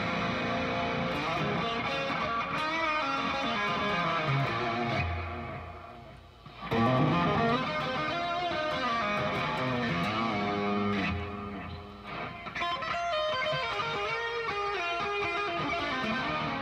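Electric guitar played through a Boss Katana Artist 100 combo amp with heavy reverb, single lines with bent notes. The playing fades out about six seconds in, then comes back in loudly.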